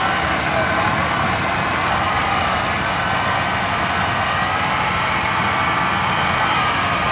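Off-road vehicle's engine running steadily, its pitch wavering slightly, during a winching recovery through forest mud.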